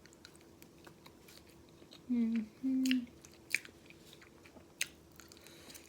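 Close-up chewing of chili cheese fries, with sharp wet mouth clicks and smacks scattered throughout. A little over two seconds in come two short voiced 'mm' hums of enjoyment.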